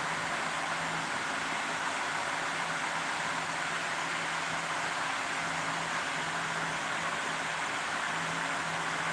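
Steady rushing noise of a running fan, with a faint low hum that comes and goes.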